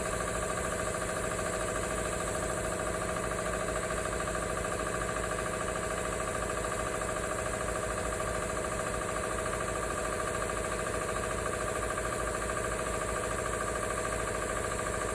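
Industrial air compressor package with a quiet intake filter kit running steadily: an even hum with a few steady tones above it.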